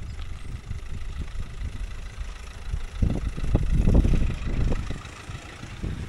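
Car towing a small travel caravan driving slowly past on a gravel lane: a low engine hum with tyre noise that grows loudest about three to five seconds in as it comes alongside, then eases off.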